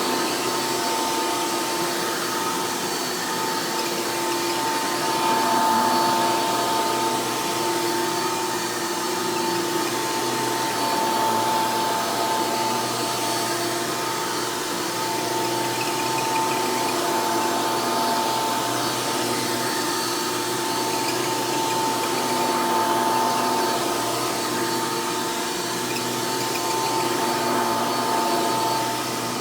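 Hoover Elite–based upright vacuum cleaner running steadily, its motor giving a constant whine with a slight wavering in pitch.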